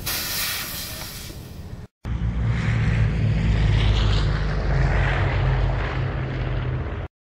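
A hiss that fades over about two seconds, then after a brief cut a light aircraft's propeller engine running steadily for about five seconds, stopping abruptly near the end.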